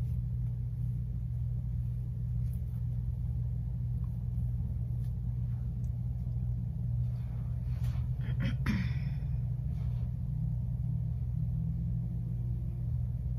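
Steady low hum, with a brief rustle about eight to nine seconds in.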